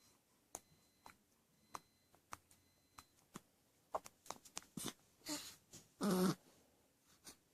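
A small, short sneeze about six seconds in, with a shorter breathy burst just before it. Faint scattered clicks and snuffles come before it.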